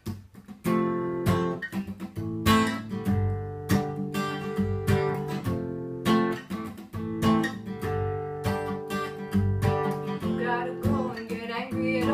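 Acoustic guitar strummed, playing repeated chords as an instrumental intro.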